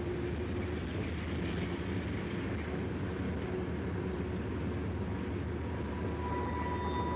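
Freight train of tank cars rolling past, a steady rumble of wheels on rail. About six seconds in, a steady high-pitched tone joins it.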